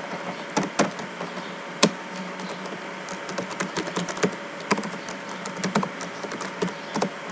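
Typing on a computer keyboard: irregular key clicks, with two louder strikes about one and two seconds in, over a faint steady hum.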